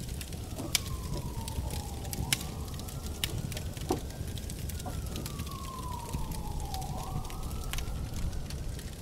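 A siren wailing, one tone sliding slowly down and back up about every four to five seconds, over the crackle and low rumble of a burning car.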